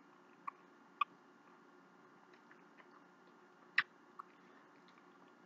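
Faint scattered clicks of eating with a fork. The sharpest comes about four seconds in, as a forkful of macaroni and cheese goes into the mouth.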